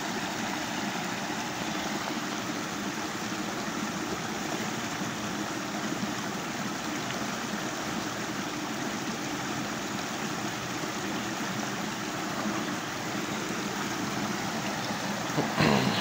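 Creek water flowing in a steady, even rush.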